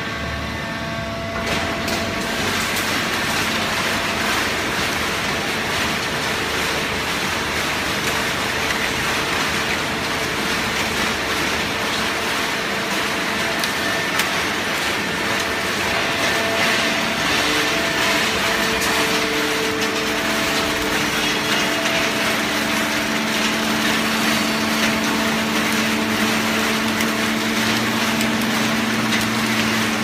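Fully automatic horizontal hydraulic baling press running: a steady, loud mechanical noise with a constant low hum.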